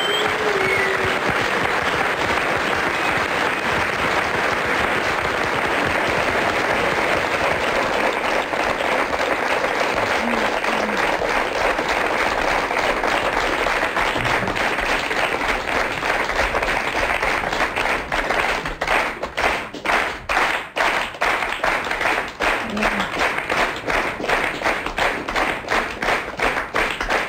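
Studio audience applauding at length as a farewell ovation. About 18 seconds in, the applause falls into rhythmic clapping in unison, about two claps a second.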